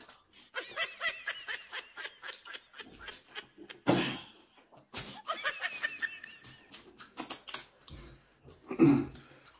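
A person laughing in two runs of quick repeated bursts, with short clicks and knocks between, and two louder short bursts about four and nine seconds in.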